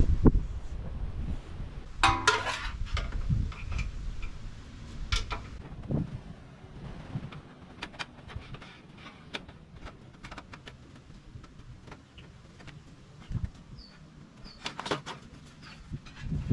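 Scattered clicks, clinks and rattles of hand work on the car as the new hood release cable is fed through, loudest in a short metallic rattle about two seconds in. A bird chirps faintly a few times near the end.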